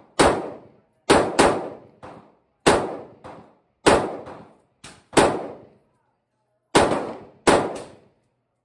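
Omni Maxx AR-15 pistol fired semi-automatically in a string of about nine sharp shots, roughly one a second, each with a short ringing tail. There is a pause of about a second and a half around two-thirds of the way in, and two shots come close together near the end.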